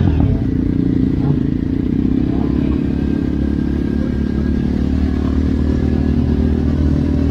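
Motorcycle engine running at a steady, even pitch while riding, heard from on board the bike.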